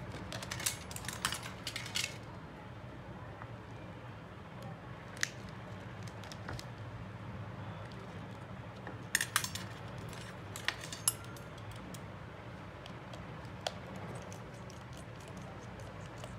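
Small tools and phone parts clicking and tapping as they are handled during a phone repair, in short scattered clusters of sharp clicks, over a steady low hum.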